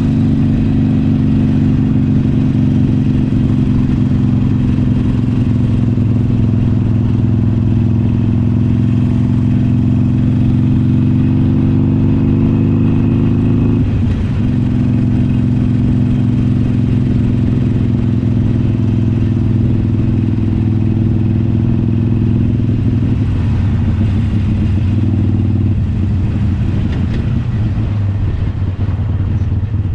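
Harley-Davidson Iron 883's air-cooled 883 cc V-twin engine running under way. It holds a steady, loud note, dips briefly about halfway through, and shifts in pitch a few times near the end.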